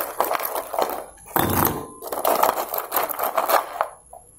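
Crisp deep-fried rice-flour fries tipped from a ceramic bowl into another ceramic bowl, clattering and clinking against the china in a few quick pours that die away near the end. The hard, rattling sound is the sign of how crisp the fries are.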